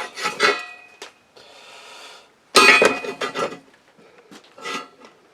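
Steel parts of a welded stand frame clanking, scraping and ringing as they are handled and fitted together. There is a short hiss about a second in and a loud ringing clank midway.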